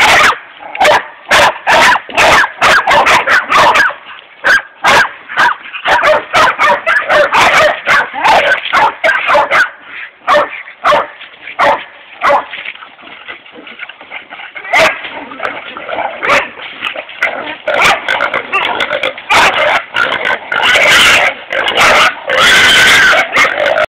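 Hog-hunting bay dogs barking loud and fast at a penned boar, short sharp barks several a second, as the dogs hold the hog at bay. The barking thins a little through the middle and grows dense again near the end.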